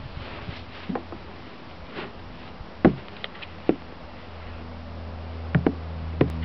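Scattered sharp knocks and taps, about half a dozen at uneven intervals, over a low steady rumble.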